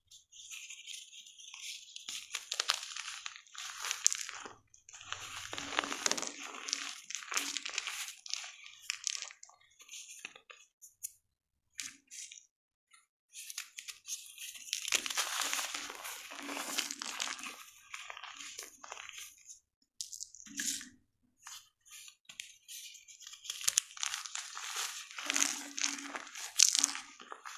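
A block of gym chalk being crushed and crumbled, with crisp crunching and crackling in three spells separated by short pauses.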